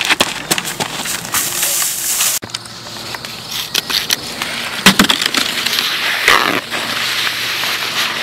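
Running footsteps crunching on a gravel road, a quick run of crunches that stops abruptly about two and a half seconds in. After that, scattered clicks and rustling, with a longer rustle or spray near the end.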